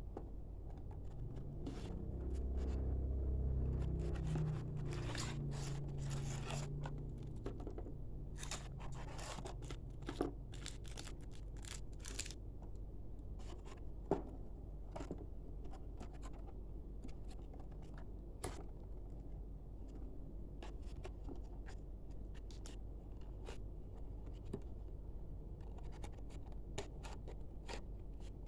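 Packaging being handled and opened by hand: rustling, scraping and scattered sharp clicks, busiest in the first half, over a steady low hum. A low rumble swells about two seconds in and fades a couple of seconds later.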